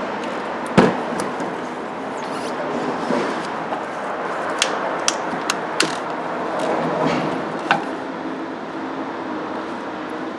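Hands and tools working the belt tensioner and idler pulley bolts: a sharp knock about a second in, then a few scattered sharp clicks in the middle, over a steady background hiss.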